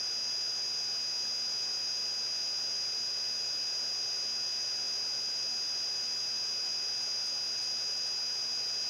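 Steady electronic hiss with a thin, high-pitched whine running unchanged underneath: background noise of the recording, with no other sound.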